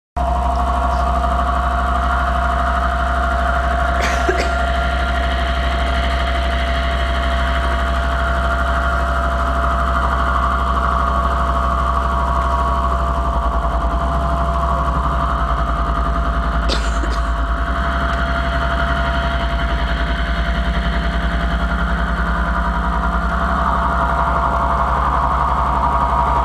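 Electronic music from a loudspeaker: a loud, steady low drone with one held mid-pitched tone over it. Two short clicks cut through, about four seconds in and again about seventeen seconds in.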